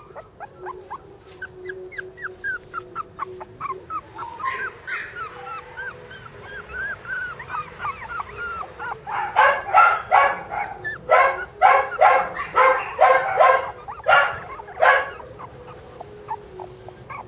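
Young Border Collie puppies whimpering in short, high squeaky cries, then from about nine seconds in a run of about a dozen louder yelps before they settle back to soft whimpers.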